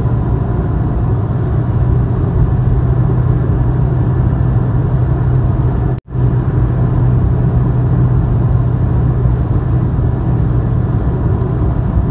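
Steady engine and road drone inside a moving vehicle at highway speed, with a low hum and tyre noise. The sound cuts out for an instant about halfway through.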